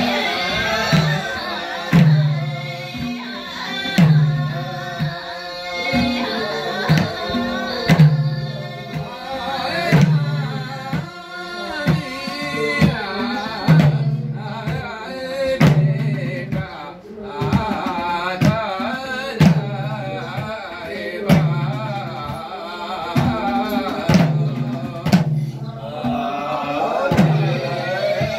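Several madal hand drums keep a steady beat, a deep stroke about once a second with sharper slaps between, under group singing of a Gurung ritual song.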